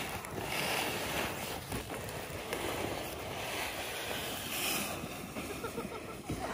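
Wind buffeting the microphone: a steady rushing noise with an unsteady low rumble.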